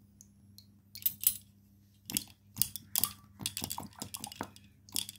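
Small clay pots knocking and clinking against a steel bowl as they are washed by hand in water: a quick, uneven run of sharp clinks starting about a second in.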